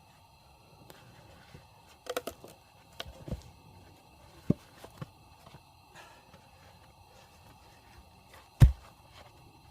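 Scattered knocks, clicks and thumps: a quick cluster about two seconds in, several single knocks between three and five seconds, and one sharp, loudest thump near the end, with no chainsaw running.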